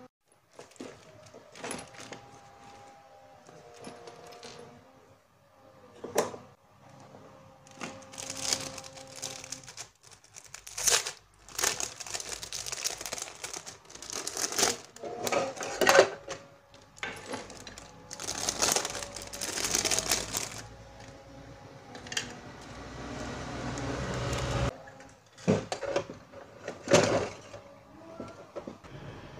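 Clear plastic bag crinkling in the hands, in bursts through the middle of the stretch, between sharp clicks and knocks of small items handled and set down on a desk.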